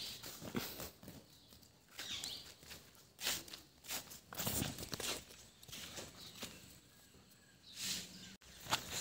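Footsteps of people walking along a road, irregular scuffing steps.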